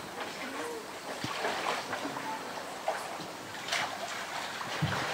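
Water splashing and sloshing in short irregular bursts as a polar bear moves and ducks its head in its pool.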